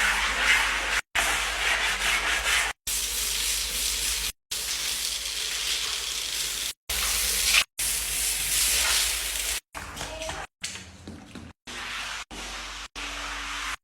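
Steady hissing noise in a string of short clips, each cut off abruptly by a brief silence every one to two seconds, growing quieter and patchier near the end.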